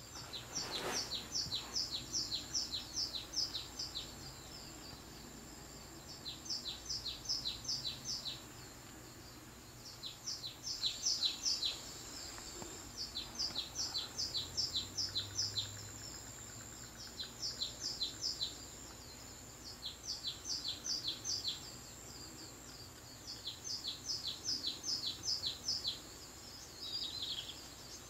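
Birdsong played through a TV's speakers: runs of quick, high chirping notes, each run about two seconds long, repeating every few seconds, over a faint steady high whine.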